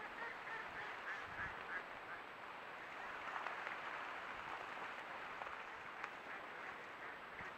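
Mallards quacking in runs of quick calls over a steady background hiss.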